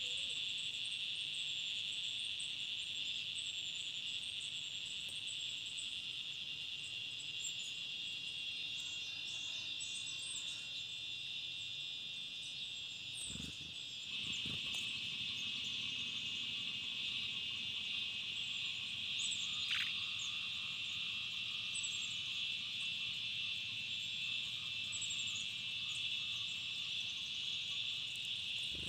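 Steady, high-pitched insect chorus with faint high chirps over it. About halfway through there are two soft thumps, and the chorus then comes in a little louder.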